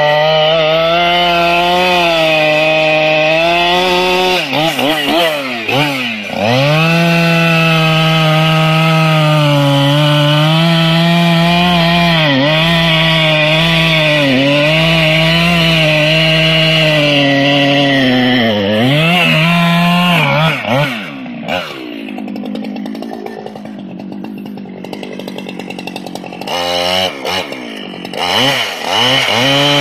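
Two-stroke chainsaw running at full throttle while cutting into the trunk of a standing tree. Its pitch sags and recovers under load twice. About two-thirds of the way through it drops back to a quieter, rougher idle for several seconds, then revs up again to resume the cut.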